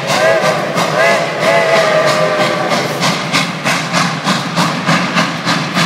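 Steam locomotive working past with a rapid, steady exhaust chuff, about five strokes a second. A wavering squeal rises and falls over it for the first few seconds.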